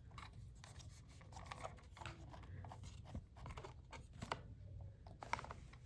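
Faint handling noise of unboxing: light rustling of packaging and scattered small taps and clicks as the mouse and the box contents are lifted out.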